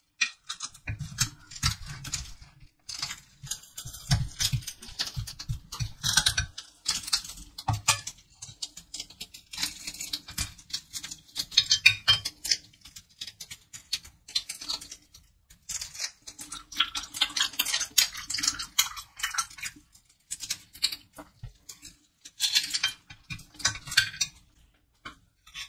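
Gloved hands handling and pulling apart soft caramel cubes, a steady stream of small crackles, rubbing and sticky tearing noises, with light taps and clicks of a knife and pieces on a glass plate.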